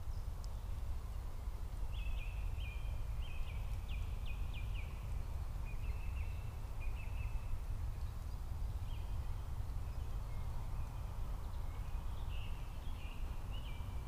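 Songbirds singing short phrases of quick repeated high notes, several times over, above a steady low rumble of distant motorway traffic.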